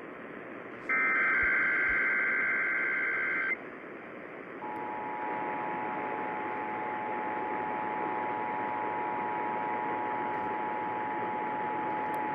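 Emergency Alert System broadcast over AM radio hiss. The last of the SAME digital header bursts, a harsh two-tone data screech, stops at about three and a half seconds. About a second later the steady two-tone EAS attention signal (853 and 960 Hz) begins and holds to the end.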